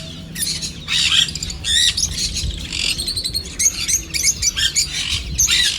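Many caged birds chirping and squawking together: a dense, unbroken chorus of short, high-pitched calls.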